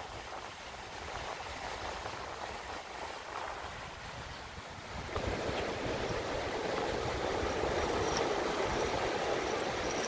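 Surf washing on the beach in a steady hiss of water, growing louder about halfway through.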